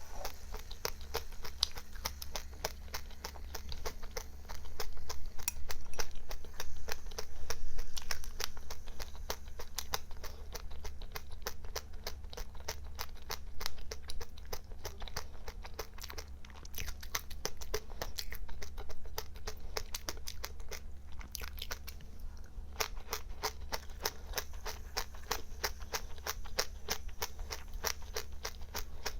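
A person chewing a mouthful of small crunchy seeds: a fast, unbroken run of tiny crunches, louder for a few seconds about five seconds in, over a steady low hum.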